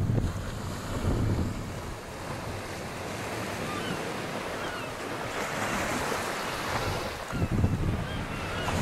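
Sea waves washing and wind gusting, with swells in the low rumble about a second in and again near the end, and faint high chirps over them in the second half.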